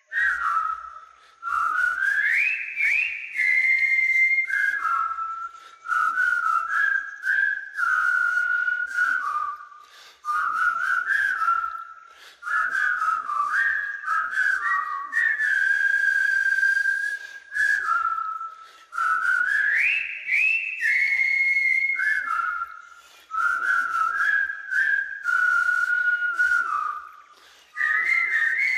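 A person whistling a tune, one melody line with sliding notes and short pauses; the opening rising phrase comes round again about two-thirds of the way through.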